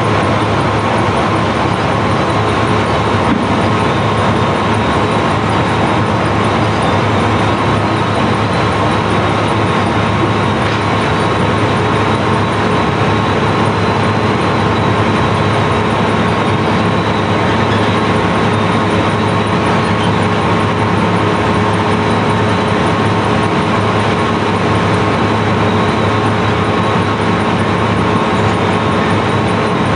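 Sand barge's belt-conveyor unloading machinery running steadily: a continuous loud mechanical drone with a steady hum.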